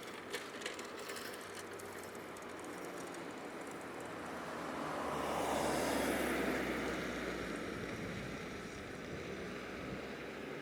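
A vehicle passing by, its noise rising to a peak about six seconds in and fading away, over a steady background hiss; a couple of sharp clicks about half a second in.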